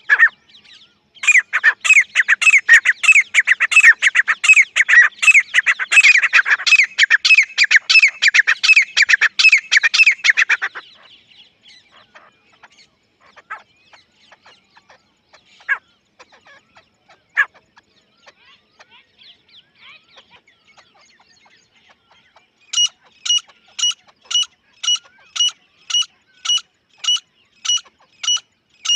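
Grey francolin calling: about ten seconds of loud, rapid, overlapping calls, then a few scattered single notes. Near the end comes a steady series of short, evenly spaced high notes, about two a second.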